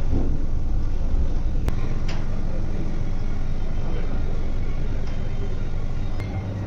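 Steady low rumble of background noise, with two sharp clicks about two seconds in. Near the end the rumble drops and a steady low hum takes over.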